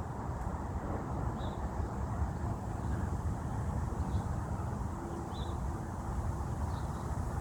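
Outdoor background: a steady low rumble with a few faint, short, high chirps scattered every second or two.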